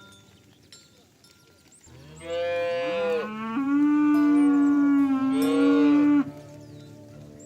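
A cow mooing: one long call of about four seconds, starting about two seconds in, rising in pitch partway through and cutting off abruptly.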